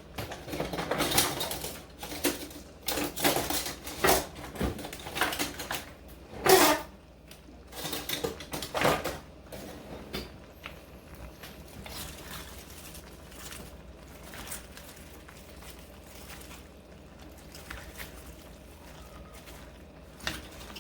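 Kitchen clatter: a quick run of knocks, clinks and scrapes of utensils and containers for about ten seconds, then only a faint steady background of the cooking.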